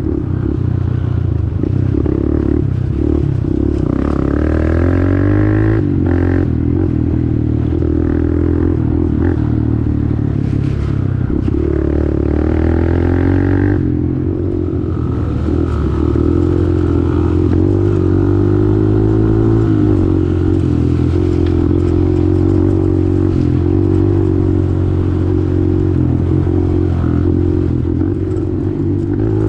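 Small single-cylinder pit bike engine running under way, its pitch rising and falling as the throttle is opened and eased off.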